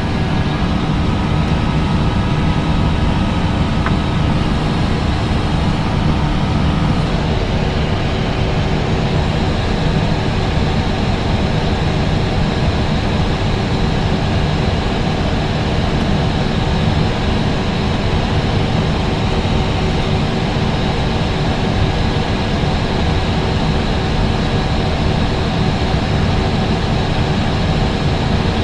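Airbus A320 jet engines and airflow during the takeoff and climb: a loud, steady rumble with several steady tones over it. A few of the tones shift about seven seconds in.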